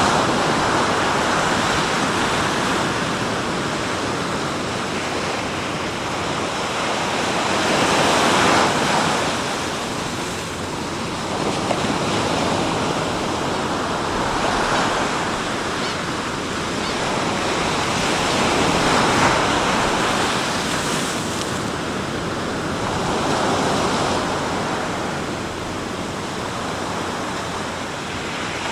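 Sea waves breaking and washing on the shore, the surf swelling and ebbing every four to six seconds.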